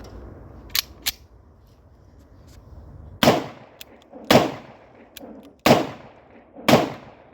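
Beretta 92FS-pattern pistol in 30 bore (7.62×25mm Tokarev) firing four shots about a second apart, each with a ringing tail, as a test fire of its second magazine. Two sharp clicks come about a second in, before the shooting.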